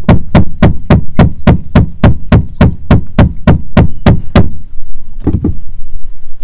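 A rapid, even series of sharp knocks, about three or four a second, that stops about four and a half seconds in, followed a second later by one or two more knocks.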